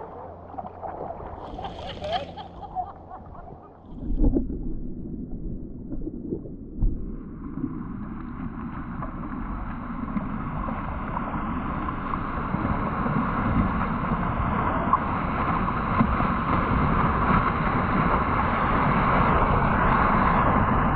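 Seawater sloshing and splashing around a helmet-mounted GoPro while surfing, muffled at first, with a sharp splash about four seconds in and another near seven seconds. From about eight seconds a steady rush of water and wind noise on the camera builds and keeps getting louder.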